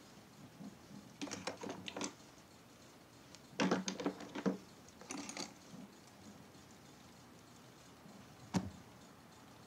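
Clicks and clatter of small makeup items being handled, in three short flurries, then one sharp click near the end.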